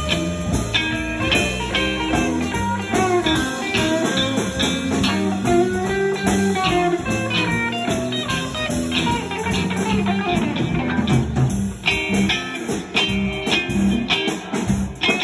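Live blues on electric guitars played through amplifiers: a busy run of single-note lead lines over a rhythm part, with low notes underneath.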